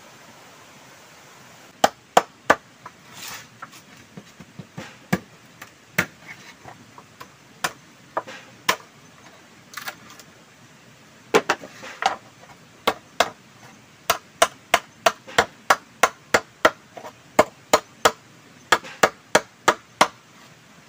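Machete chopping into a green bamboo pole: sharp, separate strikes, irregular at first, then a steady run of about two chops a second near the end.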